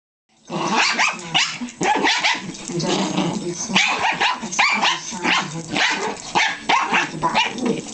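A small Pomeranian-Chihuahua mix and a Jack Russell Terrier play-fighting, with rapid, overlapping barks, yips and growls that start about half a second in.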